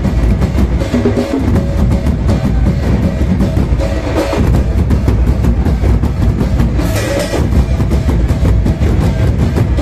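Several dhamsa, large kettle drums, beaten hard with pairs of sticks in a fast, steady, driving rhythm, deep booming strokes under sharp stick clicks.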